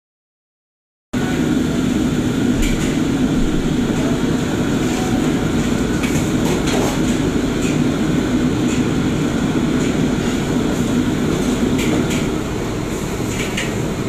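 Busy commercial kitchen wok line: the steady rushing noise of gas wok burners and the extraction hood running, with a few short metallic clanks and scrapes of spatulas against woks. The sound is cut out for about the first second, then comes in at full level.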